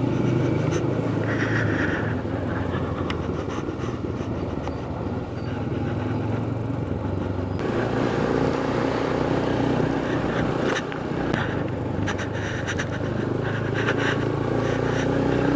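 Motorcycle engine running steadily under way, with wind and road noise; the engine note shifts about eight seconds in.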